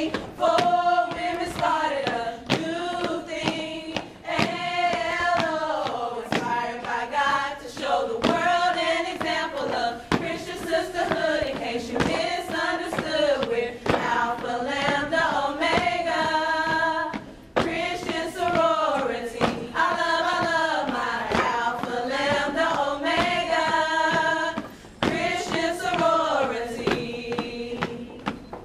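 A group of voices singing a melodic song together in phrases that rise and fall every couple of seconds, with thumps along with it; the singing breaks off briefly twice in the second half.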